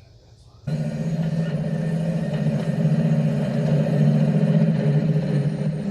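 A heavy vehicle's steady low rumble starts suddenly just under a second in and keeps going, swelling slightly in the middle.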